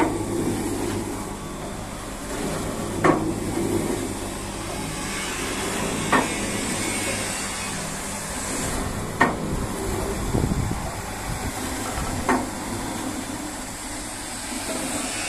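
Homemade flywheel-and-gearbox log splitter running unloaded: its motor and belt-driven flywheel keep up a steady hum, with a sharp metallic clack about every three seconds and a brief low rumble about two-thirds of the way through.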